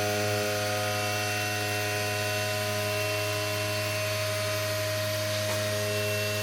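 Machine tool running steadily with a constant hum of several steady tones, machining the extruded aluminium profile flat.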